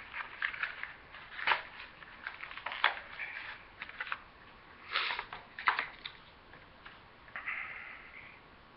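Cardboard box packaging being handled and pulled loose by hand: irregular rustling and crackling with several sharp snaps, then a softer rustle near the end.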